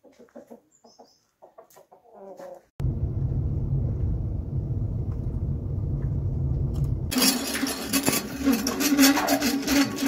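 Domestic hens clucking softly for the first few seconds. Wind then buffets the microphone with a heavy low rumble. About seven seconds in this gives way abruptly to a louder, steady rough noise with a low hum.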